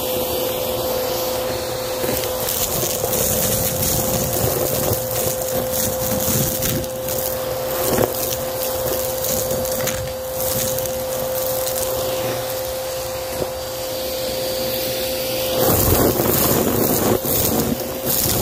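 Vacuum cleaner running with a steady whine as its hose nozzle sucks confetti, glitter and paper scraps off carpet, with crackling and rattling as the debris is pulled in. It gets louder near the end as the nozzle pushes into a heap of confetti.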